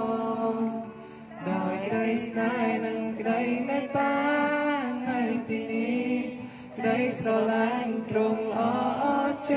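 A man singing a hymn into a microphone, amplified through a portable loudspeaker: phrases of long held notes separated by short breaths.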